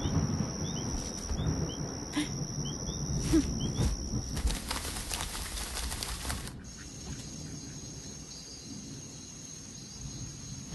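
Night ambience of insects trilling steadily at a high pitch, with scattered short chirps over a low rumble. About four and a half seconds in, a burst of hiss covers the trill for about two seconds, then the trill comes back.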